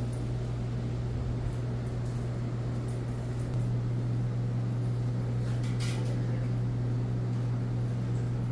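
Steady low mechanical hum, a little louder from about three and a half seconds in, with a faint brief rustle near the middle.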